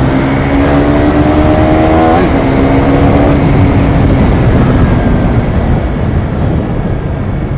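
Motorcycle engine pulling under acceleration, its note climbing slowly, with a quick gear change about two seconds in. The note then steadies and fades under heavy wind rush on the microphone.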